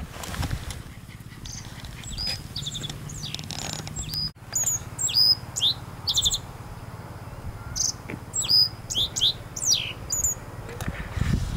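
Small songbirds singing: short high chirps and quick downward-sweeping whistled notes, sparse at first and coming thicker and louder after about four seconds, over a low steady hum.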